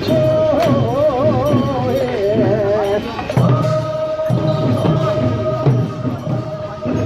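Korean traditional funeral song sung as a chant: a lead voice with wide vibrato, then one long held note from about three seconds in over lower voices, with sharp percussive strikes throughout.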